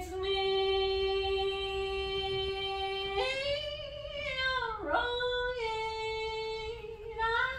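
A woman singing unaccompanied in long held notes: one steady note for about three seconds, a step up into a sliding phrase that dips about five seconds in, then another long held note that rises near the end.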